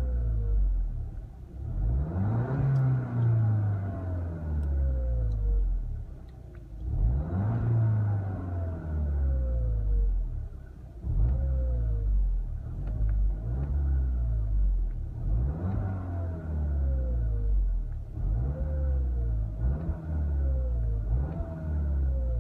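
Turbocharged four-cylinder engine of a VW Mk7 GTI revving up and easing off again and again, each time followed by a whistle that falls in pitch as the turbo spins down. The owner wondered whether this whistle is a sign of the stock turbo failing, but doubts it, since there is no metallic scraping or smoke.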